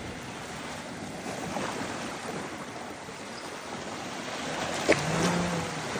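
Small waves washing steadily along a sandy shore. One sharp click about five seconds in.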